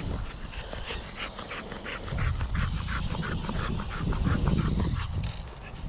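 Dog panting hard in quick, even breaths, about four to five a second, with a low rumble underneath that swells between about two and five seconds in.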